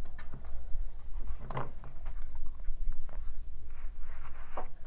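Tarot card decks handled and set down on a tabletop: irregular soft clicks and rustles of card stock, with two brief murmured vocal sounds.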